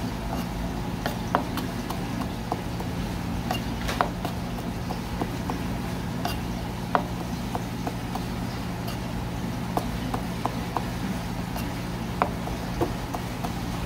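A kitchen knife knocking and clicking on a cutting board in irregular taps, about one or two a second, as small gizzard shad are cut up. A steady low hum runs underneath.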